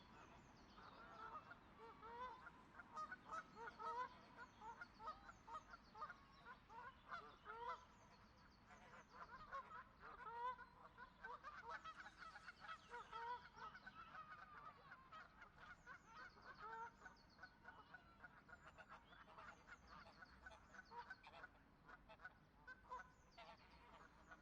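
A flock of geese honking: many short, overlapping calls repeating one after another, busiest around the middle.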